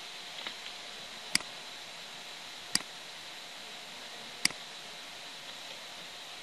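Three sharp computer mouse-button clicks, a second and a half or so apart, over a steady hiss.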